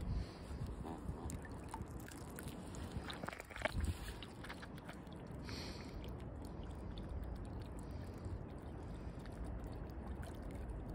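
Canada geese pecking at bread crumbs on the water, with bread crumbled by hand over them: faint, irregular small clicks and crackles, mostly in the first few seconds, over a low rumble.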